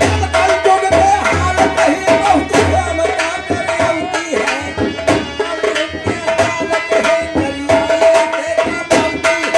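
Indian folk music with fast, dense hand-drum strokes under a held melody line.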